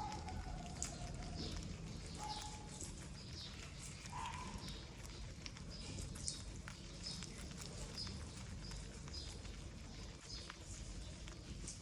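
Repeated short, high chirps, each falling quickly in pitch, coming every half second or so over a faint steady background.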